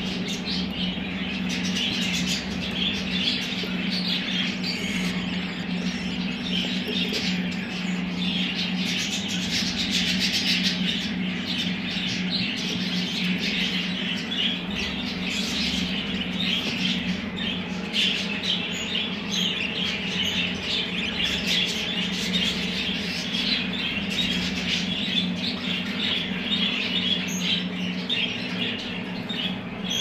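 Many budgerigars chattering and chirping at once, a dense, unbroken twitter, over a steady low hum.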